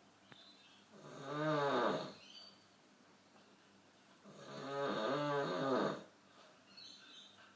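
A man snoring: two long snores about three seconds apart, the second longer than the first, each a deep pitched drone with quiet breathing pauses between.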